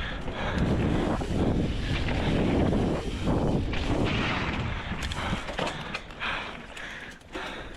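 Mountain bike descending a dirt flow trail: rushing wind noise, tyres on dirt, and the bike rattling and thumping over bumps. There are a few sharp clicks near the end.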